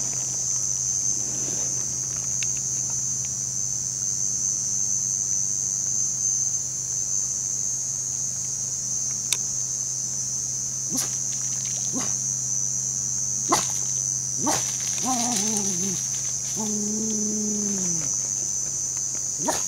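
Insects drone steadily at a high pitch, with a few sharp clicks scattered through. About fifteen seconds in, a Jack Russell terrier whines in a few wavering notes, then gives one longer whine that falls away at its end.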